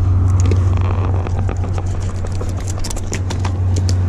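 A steady low rumble, with many short clicks and rustles of the camera brushing against clothing as its wearer walks.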